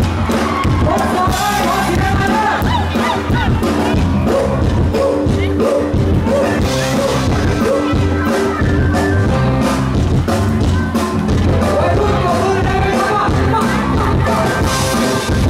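Live pop-rock band playing loud through a concert sound system, with a steady drum beat and a singer's voice over the music.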